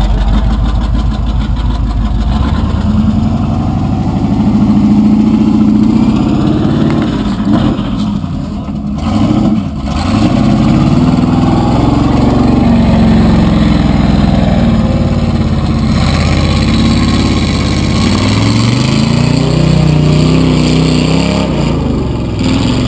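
Lifted Chevy Blazer mud truck's 350 Chevy small-block V8 revving up and down again and again under load, its pitch rising and falling several times, with a brief lull about nine seconds in.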